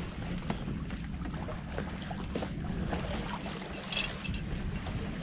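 Wind buffeting the microphone and water washing along the hull of a gaff-rigged wooden sailboat under way, with scattered small knocks and creaks and a brief squeak about four seconds in.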